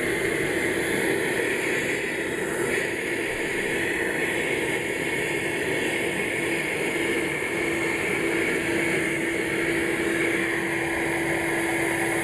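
Koblenz 9-amp vacuum cleaner running steadily with a constant hum, sucking air through a corrugated conduit to draw a pull string through it.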